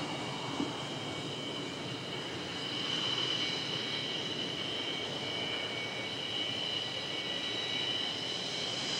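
Jet engine running steadily with a high whine over a rushing noise.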